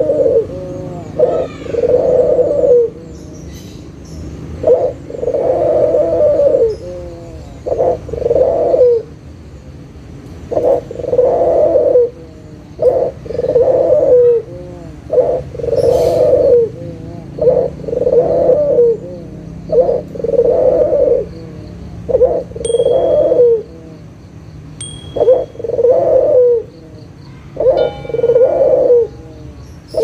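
White ringneck dove (puter) cooing over and over: each phrase is a short note followed by a longer rolling coo, repeated about every three seconds. Two brief high peeps sound in the second half.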